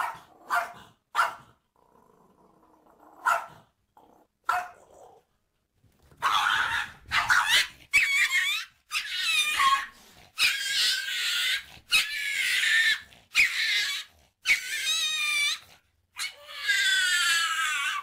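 Small dog barking and growling at a cat in a series of harsh, snarling outbursts about a second apart, starting about six seconds in after a few short sharp yaps.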